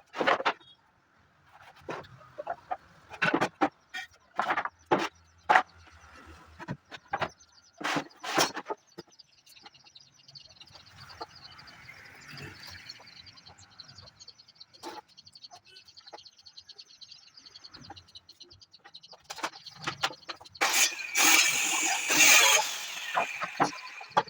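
A series of irregular sharp knocks and taps, thickest in the first third, then a harsh rasping noise for about two seconds near the end.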